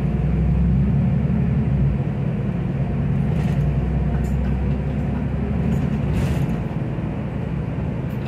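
Solaris Urbino 12 III city bus on the move, heard from inside the passenger cabin: a steady low engine and road rumble that eases slightly about two seconds in and again near the end.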